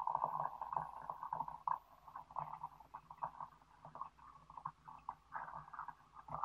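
A thin stream of water poured into a Hario glass teapot onto loose black tea leaves, a steady bubbling splash that grows quieter as the pot fills and cuts off at the end when the pour stops.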